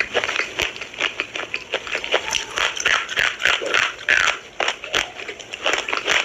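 Close-up crunching and chewing of Minakshi brand slate pencils: a dense run of sharp, brittle cracks and crackles as the chalky pencil is bitten and ground between the teeth.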